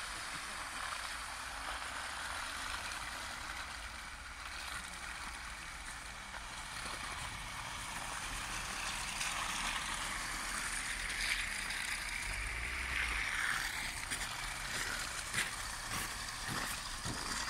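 Off-road pickup trucks, a Ford Ranger leading, driving slowly past through snow and muddy slush: steady engine rumble with tyres churning wet snow, and a few sharp cracks near the end.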